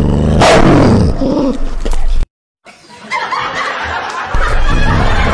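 A dog vocalizing once, loudly and falling in pitch, about half a second in, over background music. The sound cuts out briefly a little past two seconds in.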